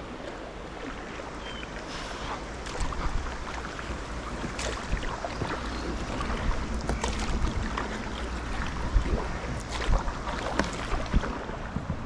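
Kayak paddles dipping and splashing in river water, irregular strokes over a steady wash of moving water, with wind rumbling on the microphone.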